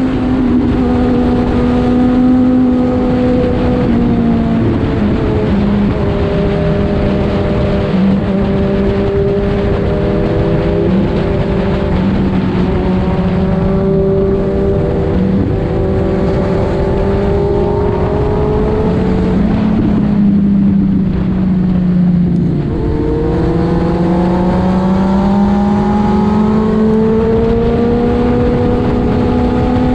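Kawasaki Z1000's inline-four engine and exhaust running at cruising speed under the rider. The pitch holds fairly steady with small steps, falls about two-thirds of the way through as the throttle eases off, then climbs again as the bike accelerates.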